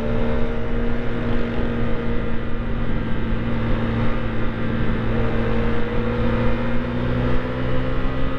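Husqvarna Svartpilen 401's single-cylinder four-stroke engine running under way at a fairly steady speed, with heavy wind rush over the microphone. The engine's pitch eases slightly, then climbs gently again in the second half.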